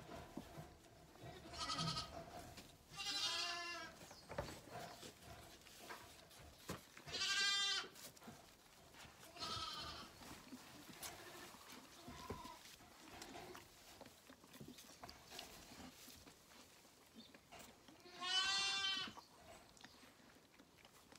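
Zwartbles lambs bleating: about five quavering bleats spread several seconds apart, with faint rustling and small knocks between them.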